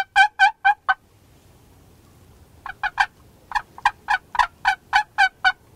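Turkey yelps: a run of sharp, raspy notes about four a second that stops just under a second in. A second, longer run of about a dozen notes starts a little before the middle, soft at first and then loud.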